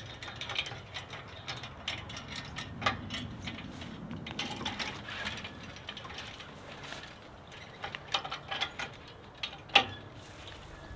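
Hand-worked ratcheting lever on a fence-stretching chain clicking irregularly as woven wire fence is drawn tight, with a run of clicks near the end and one sharp loud click.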